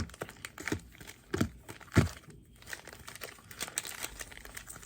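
Foil Pokémon booster packs crinkling as they are handled and sorted, with a few soft knocks as packs are set down, the loudest about two seconds in.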